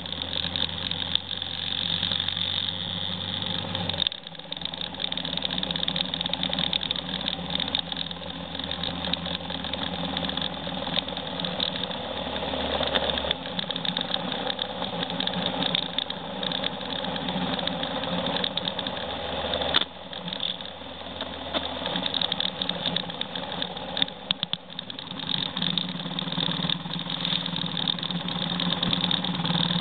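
Motorcycle engine running steadily while riding, heard from on the bike, with brief dips in the engine note about four seconds and twenty seconds in.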